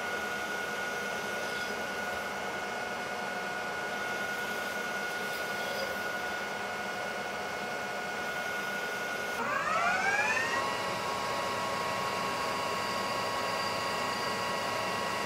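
Metal lathe running, turning down the muzzle end of a rifle barrel, with a steady whine from the spindle drive. A little past halfway the whine glides up over about a second to a higher pitch and holds there.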